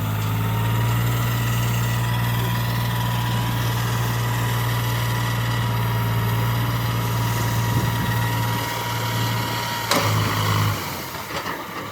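Heavy diesel engine idling steadily, with a thin whine above its hum. About ten seconds in there is a sharp knock, and the engine sound stops soon after.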